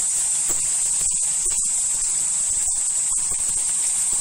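Hot oil in a kadai sizzling steadily as small balls of idli-batter bonda are dropped in to deep-fry, a continuous high-pitched hiss of bubbling oil.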